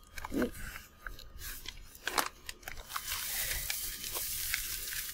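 Dry hay rustling and crackling in a large plastic bag, handled close to the microphone: scattered crackles, then a denser rustle in the second half.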